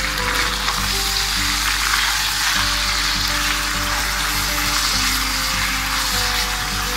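Chopped raw boneless chicken sizzling steadily in hot oil in a nonstick wok while it is stirred with a spatula. The chicken has only just gone into the pan.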